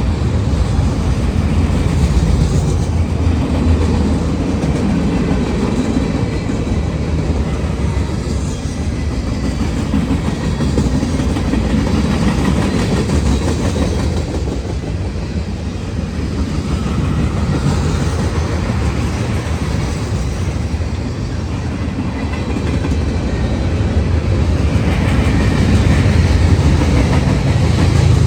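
Norfolk Southern freight cars rolling past at close range: a steady low rumble with the clickety-clack of wheels over the rail joints, swelling and easing slightly as the cars go by.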